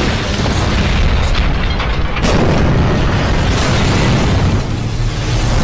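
Animated battle-scene soundtrack: a loud, dense low rumble of booms and explosion blasts with music underneath, with a few sharper hits about two and three and a half seconds in.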